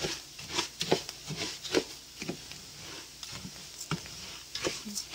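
Uncooked rice being toasted in oil in a large pot and stirred with a spoon: scraping strokes about twice a second, with a short lull midway, over a faint sizzle.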